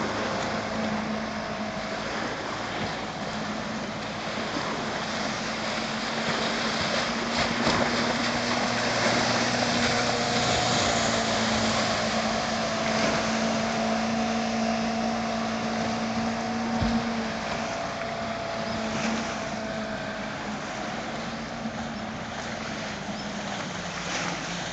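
Johnson 115 hp V4 two-stroke outboard on a speedboat running at speed, a steady drone across the water, a little louder about halfway through.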